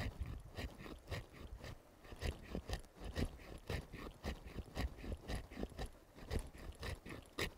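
The sharpened 90-degree spine of a Battle Horse Knives Fieldcrafter bushcraft knife scraping along a stick in quick repeated strokes, rasping off bark and fine wood shavings.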